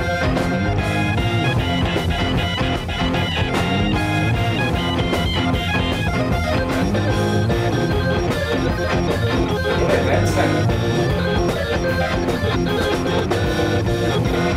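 Instrumental rock played by a band: Hammond organ, electric guitar and drum kit together, with a steady drum beat.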